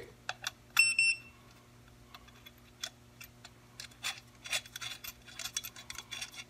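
A KSGER T12 soldering station gives one short, high electronic beep about a second in as the iron handle's connector is seated. Small clicks and taps follow as the plug is pushed into the station's front socket and worked into place.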